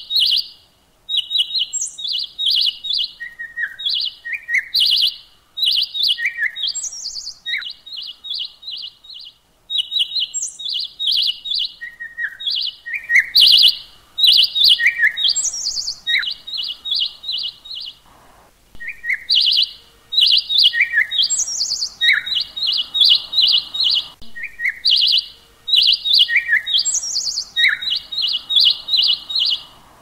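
Songbird chirping: short runs of quick, high chirps repeated over and over, now and then broken by a single note sliding downward, with a few brief pauses.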